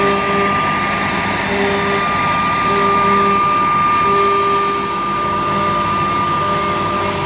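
Techno HD-II tabletop CNC router running, its 2-horsepower HSD high-frequency spindle giving a steady high whine as it engraves MDF, over the rushing air of the dust collection. A lower tone switches on and off every second or so as the head moves.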